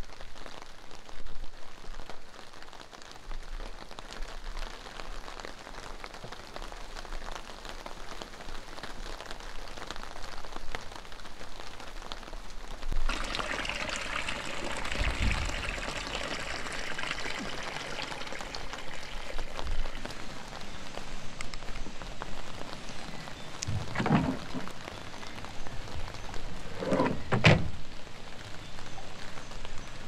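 Light rain pattering steadily on wet paving and plastic water butts. From about halfway a denser splashing comes in, water running from a water butt's tap into a plastic trug. Two brief thumps near the end.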